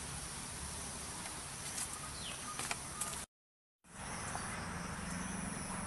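Outdoor ambience: a steady background hiss with a few short, falling bird chirps and a couple of sharp clicks. The sound drops out completely for about half a second a little after three seconds in, then the ambience resumes.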